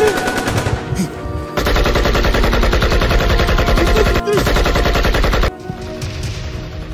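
Rapid automatic gunfire in long sustained bursts, with a brief break about four seconds in. It stops abruptly about five and a half seconds in, leaving quieter background music.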